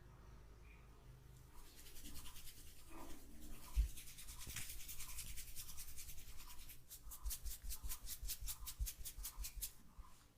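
Hands working quickly and rhythmically over hair and scalp in a head massage, a fast run of rubbing strokes several times a second with soft thuds under them. One sharper knock comes about four seconds in.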